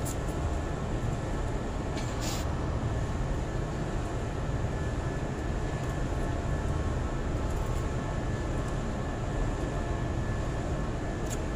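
Steady low mechanical drone of an engine running, with a faint constant whine above it. Two brief clicks, one about two seconds in and one near the end.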